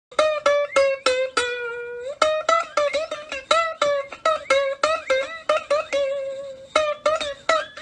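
Music: a quick melody of plucked notes on a ukulele-like string instrument, with a short pause about two seconds in.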